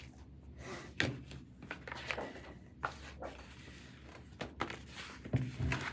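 Handling of a picture book: a few soft knocks and a light paper rustle as the book is moved and its page turned.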